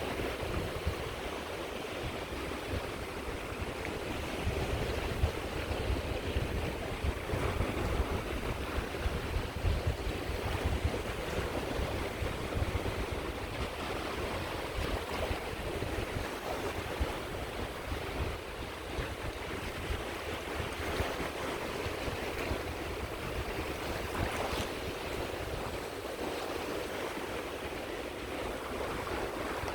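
Sea waves washing onto a shore, a steady surf wash with a low rumble, with some wind noise on the microphone.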